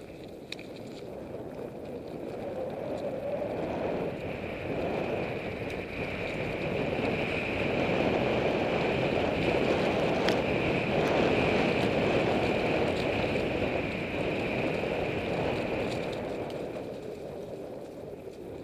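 Mountain bike rolling along the trail: steady tyre rumble and wind noise that swell to their loudest midway, then ease off toward the end.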